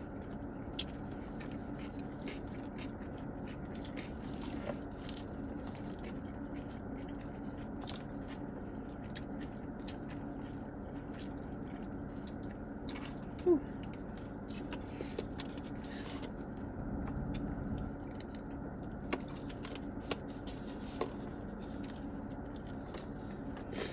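Close-miked chewing and biting of a burger, with scattered small mouth clicks and soft rustles, over a steady low hum inside a car. One short, louder sound stands out about halfway through.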